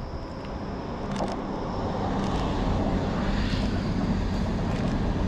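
A train passing close by on the railway line: a steady rumble that swells over the first second or two and stays loud.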